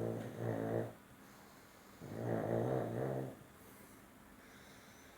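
A sleeping pug snoring: one snore ends a little under a second in, and another starts about two seconds in and lasts over a second. Each is a pitched snore, the breaths coming about every three seconds.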